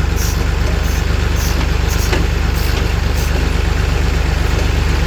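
1965 Massey Ferguson 203 tractor engine idling steadily, with a fast, even firing pulse.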